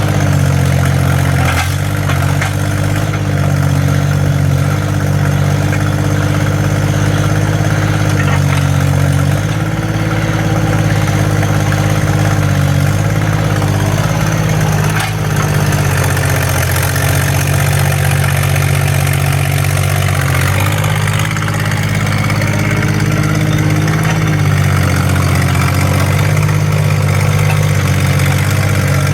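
2000 Yanmar B15 mini excavator's diesel engine running steadily, its pitch stepping up and down several times.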